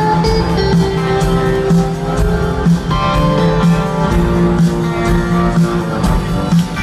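Rock band playing live: an instrumental passage led by guitar over steady bass and regular beats, with no singing.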